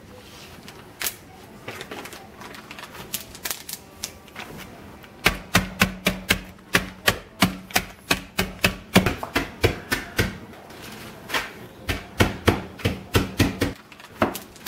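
Empty glass beer bottle pounding pecans in a Ziploc bag on a wooden cutting board to crush them to crumbs: sharp knocks, a few scattered at first, then a fast run of about three to four strikes a second, a brief pause and another run near the end.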